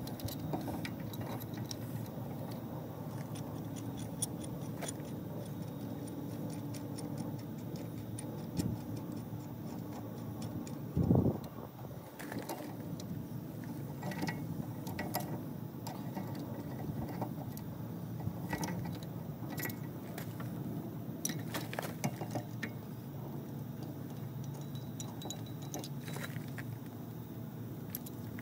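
Scattered metallic clicks and clinks of a gear puller and hand tools being fitted onto the cutter's dishpan hub and worked, over a steady low hum. One louder low thump about eleven seconds in.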